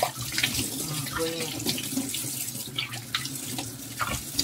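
Water running from a kitchen faucet into a stainless steel sink, with irregular splashing as a cat is rinsed under the stream.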